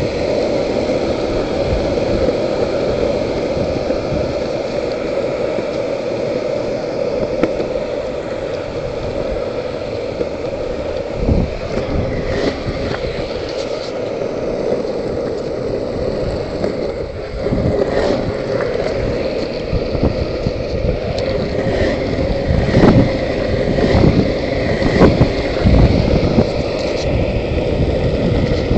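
Longboard wheels rolling over rough, cracked asphalt, a steady rumble. From about the middle on there is a scatter of sharp knocks.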